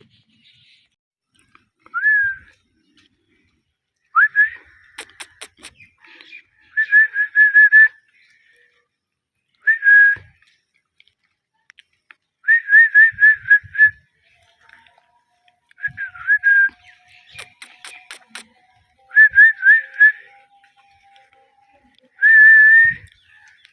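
Indian ringneck parakeet chirping: short, high whistled notes in quick runs of three to five, repeated every couple of seconds, with a few sharp clicks between.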